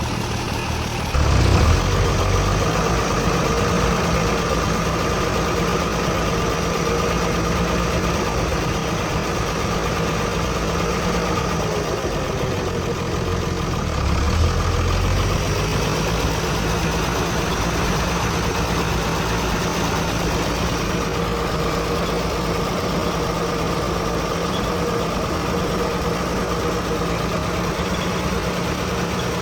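Heavy diesel engine running steadily, stepping up in level about a second in, with a brief surge around fourteen seconds in.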